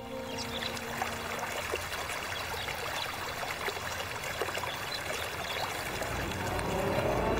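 Rushing water of a waterfall and stream, a steady wash. Music comes in near the end.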